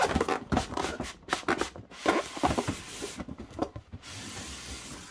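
Cardboard scraping, rustling and knocking as the inner packaging is slid out of a cardboard box sleeve, in a series of irregular scrapes and knocks, turning to a steadier sliding hiss near the end.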